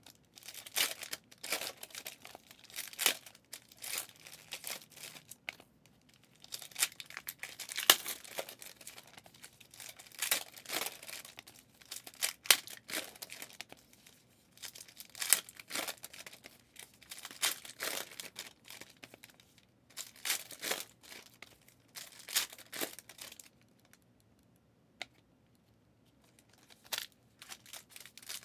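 Trading-card pack wrappers of 2023 Legacy football cards being torn open and crinkled, one after another in irregular crackly bursts, with a brief lull near the end.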